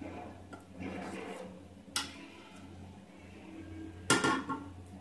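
A small steel cup stirring and scraping batter in a steel bowl, with sharp metal clinks about two seconds in and, louder, about four seconds in. A steady low hum runs underneath.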